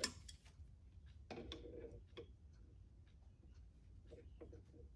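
Faint clicks and scrapes of an open-end wrench on an AN hose-end fitting clamped in a vise, as the fitting is tightened onto braided oil line. There is a sharp click at the start, a short rasp about a second and a half in, and scattered light ticks.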